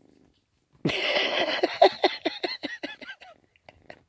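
A cat hissing and growling in a run of short pulses, about five a second, starting about a second in and fading out.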